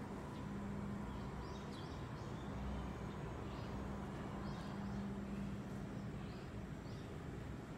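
Quiet room ambience: a steady low hum, with faint, short bird chirps every second or so.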